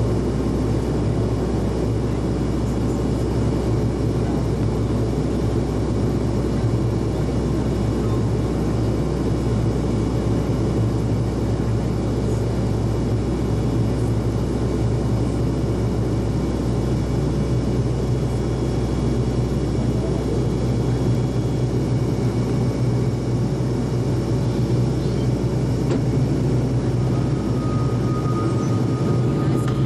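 Steady, unchanging drone of a Buddha Air turboprop airliner's engines and propellers, heard from inside the cabin on approach, with a constant low hum under it.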